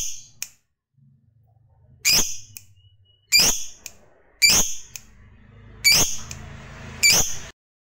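Lovebird giving short, sharp, high single calls, six in a row about a second apart. These are the 'ngetik' calls that fanciers hear before a bird breaks into its long chattering song ('ngekek').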